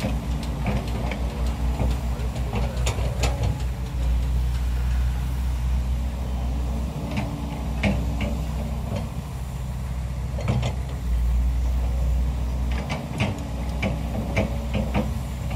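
Diesel engines of heavy piling machinery, a piling rig and an excavator, running steadily with a deep rumble, with occasional short knocks.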